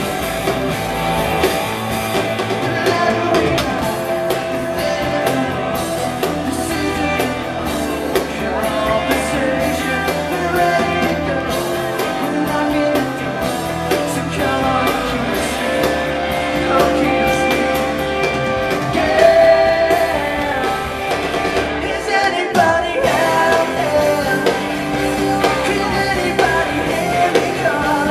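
Live rock band playing a song with a lead singer, electric guitars and band.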